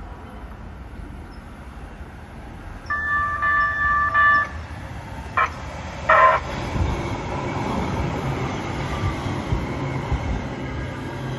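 Los Angeles Metro Kinkisharyo P3010 light-rail train sounding its two-tone horn for about a second and a half as it approaches, followed by two short signals a second or so later. It then runs close past, with steady wheel and motor noise as it pulls into the platform.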